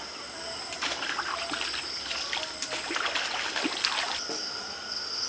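Night insects, crickets among them, trill steadily on two high pitches; the higher one stops about four seconds in. From about a second in until then, a scatter of irregular short trickling and dripping sounds plays over them.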